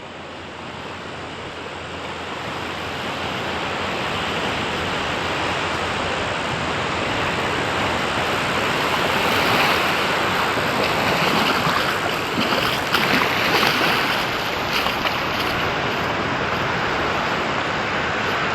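Ocean surf rushing and breaking on a beach, a steady wash of noise that swells over the first few seconds.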